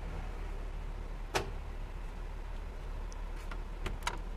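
Blizzard wind rumbling low and steady on the microphone, with a few sharp ticks, the loudest about a second and a half in and a small cluster near the end.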